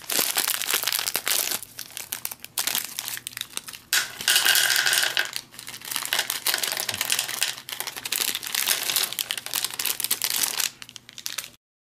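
Plastic M&M's candy wrapper crinkling and tearing as it is opened by hand, with the candies tipped out into a plastic tray, in uneven bursts that cut off suddenly near the end.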